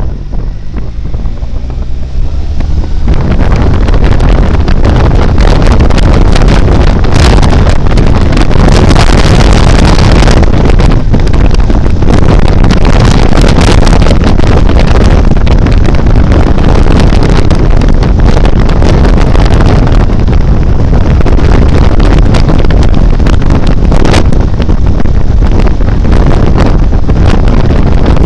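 Heavy wind buffeting on the microphone over a Benelli TRK 502's parallel-twin engine as the motorcycle is ridden. The noise jumps up about three seconds in and then stays loud and steady.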